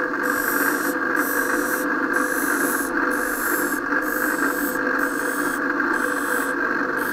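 Serrating (wave-edge grinding) machine running steadily while a knife blade is held to its wheel, a continuous grinding hum as the serrated edge is cut.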